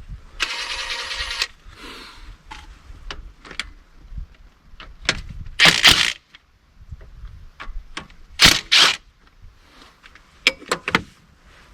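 Hand tools working loose the 1/2-inch bolts of a backhoe engine's thermostat housing. There is a brief buzzing rattle of about a second near the start, then scattered metal clicks and two louder clanks, around the middle and about two-thirds of the way in.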